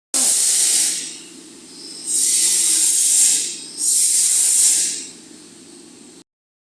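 Three loud hissing blasts, each about a second long, over a steady low hum from the running milling machine.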